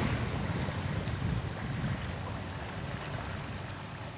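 Water splashing and churning as a Chinook dog swims out across a pond after a thrown stick, the sound fading as it moves away, over a low rumble of wind on the microphone.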